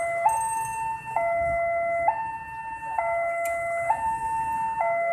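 Railway level-crossing warning signal from its loudspeaker: an electronic two-tone alarm alternating between a lower and a higher note, each held about a second, warning that a train is approaching and the crossing is about to close.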